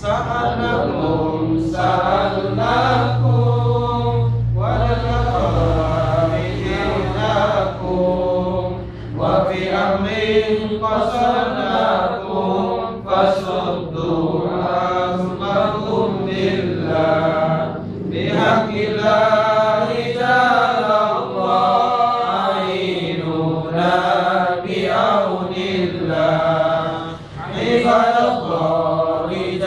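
Men's voices chanting a devotional Arabic recitation together, a continuous melodic chant with short breaks between phrases.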